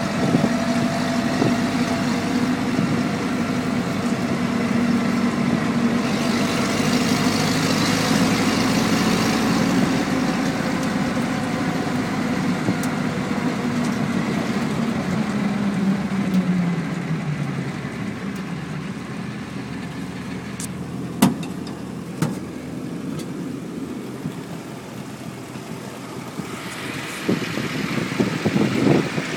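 1945 Willys MB jeep's four-cylinder flathead engine running while the jeep is driven. About halfway through, the engine note falls as the jeep slows, then it runs more quietly at idle. Two sharp knocks come a few seconds after it slows.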